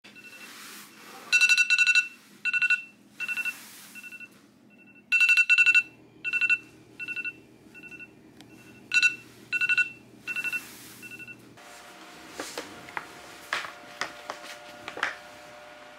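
Electronic wake-up alarm beeping: one high pitched tone sounded in short rapid trills, over and over, for about ten seconds before it stops. Faint clicks and a low steady tone follow.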